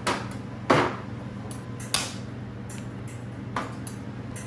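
MIG welder, run from a 3000 W inverter on a deep cycle marine battery, striking an arc in four short bursts about a second apart, each cutting out at once, over a steady low hum. The arc will not hold, which the welder puts down to the inverter's voltage dropping under the load.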